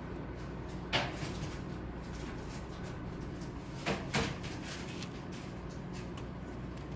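A few light knocks from a stainless-steel cookie cutter being handled and pressed into rolled-out cookie dough on a steel worktop: one about a second in, then two close together around four seconds in, over a steady low hum.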